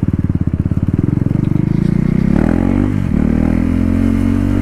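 KTM Duke 390's single-cylinder engine, running with the stock exhaust removed, pulsing at low revs and then picking up revs about two seconds in. The pitch dips briefly near the middle and rises again, then holds steady.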